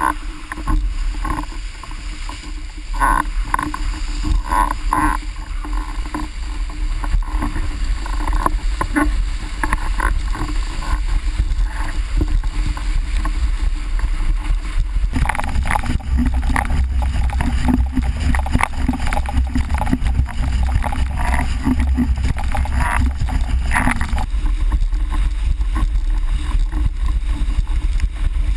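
Wind buffeting a boom-mounted action camera's microphone over the rushing and splashing of a formula windsurf board planing fast across flat water. The rush grows stronger about halfway through.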